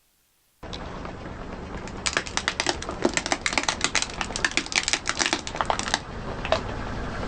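A car's tyre crushing crunchy objects: a dense run of sharp crackles and snaps over the vehicle's low rumble, thinning out near the end.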